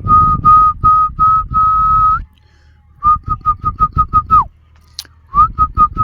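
A whistle-like tone on one steady pitch, repeated in notes. First come several longer notes; then, after a short pause, quick runs of short notes about five a second, the first run ending in a falling glide.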